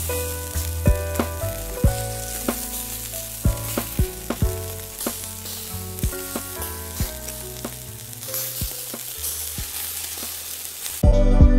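Wagyu beef slices sizzling and frying on a hot griddle plate, a steady crackling hiss, over soft plucked background music. Near the end the sizzling stops and the music gets louder.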